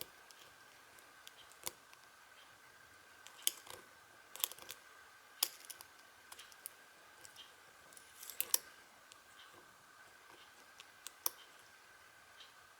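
Faint, irregular metallic clicks and ticks of a lock pick working the pins of a Union padlock during single-pin picking, with a small cluster of clicks about eight seconds in.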